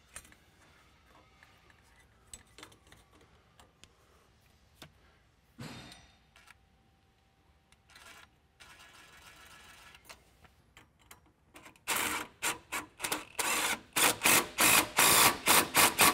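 Faint clicks and rustles of a hose and band clamp being handled, then, about twelve seconds in, a DeWalt cordless driver running in short, stuttering bursts, some held longer, as it tightens a T-bolt band clamp on a 2-inch water hose.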